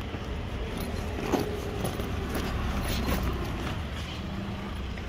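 Steady low rumble of street traffic, with a couple of faint short clicks, the sharpest about a second and a half in.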